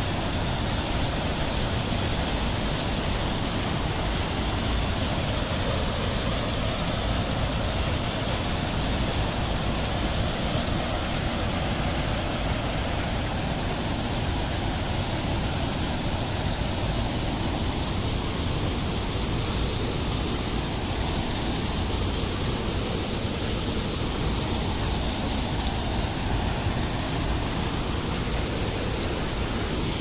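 White water of a small waterfall rushing steadily down a narrow rock channel into a pool, an even, unbroken rush of falling water.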